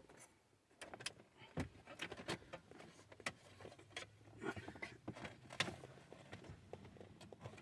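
Faint, irregular clicks and knocks of plastic dash trim and radio-kit parts being handled and pushed into place in a car dashboard.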